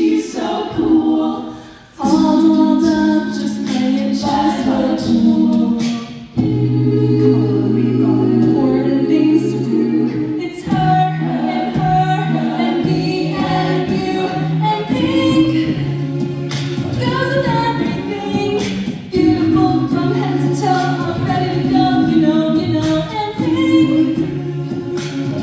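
Mixed a cappella vocal group singing sustained chords into handheld microphones, with a low bass line under the upper voices and short sharp clicks through it.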